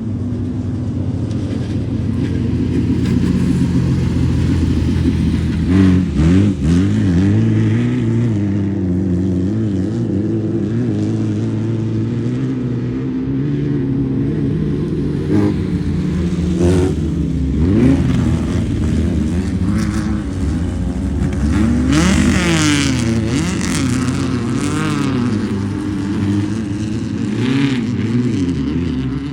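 Off-road race vehicles' engines running and revving, several at once, their pitch rising and falling as they slow and pull away. The engines get louder and brighter about two-thirds of the way through.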